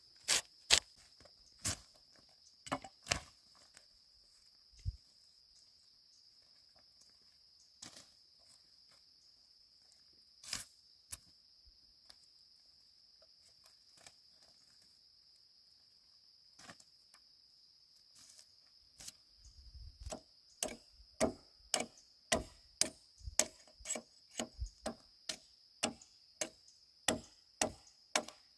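Sharp chopping strikes of a blade on bamboo or wood, a few near the start and a quicker run of one or two a second through the last ten seconds. A steady high-pitched insect drone runs underneath.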